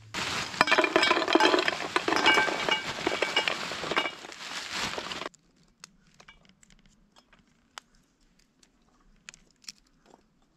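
Coals tipped into a small metal fire bowl, clattering and rattling with brief ringing for about five seconds, then stopping abruptly. After that come only faint small clicks as firelighter cubes are set on the coals.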